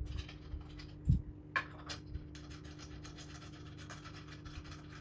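Wooden easel brace and bolt being handled and fitted by hand: faint scratching and rubbing, with a low knock about a second in and two light clicks soon after.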